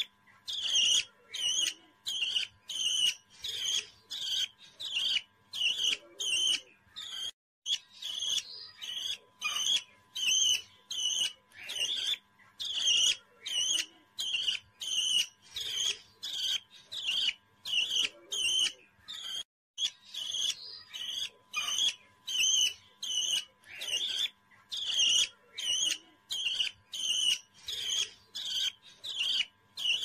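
Young parrot chirping in a steady rhythm: short, high chirps repeating about two to three times a second, broken by two brief silences.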